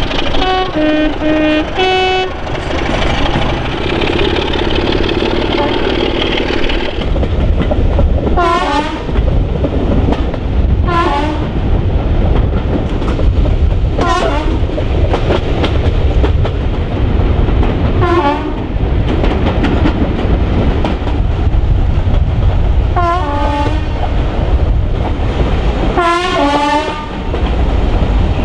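Train horn: a quick run of short blasts at the start, then, heard from a coach window of the moving train, about six more blasts a few seconds apart over the steady rumble and wheel clatter of the carriages.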